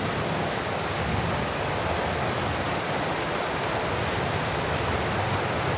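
Heavy rain falling steadily: a constant, even hiss with no breaks.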